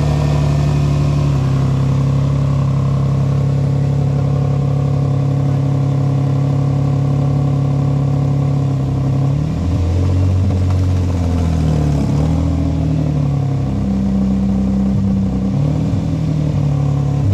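2003 Nissan 350Z's 3.5-litre V6 engine running, filmed up close. It holds a steady note for about the first half, then its speed shifts up and down from about halfway through.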